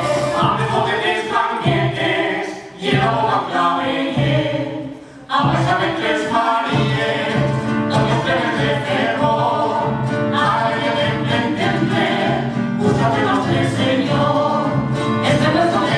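Live folk music: a group of voices singing together with plucked-string accompaniment. The music dips briefly twice in the first few seconds, then runs on.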